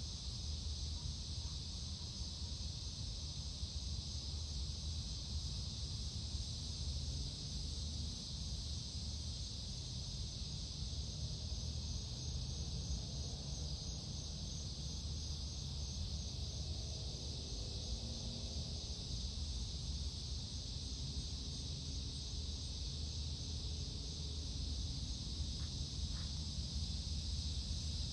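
Outdoor ambience: a steady high-pitched insect chorus over a low rumble, with a faint drone sliding in pitch through the middle.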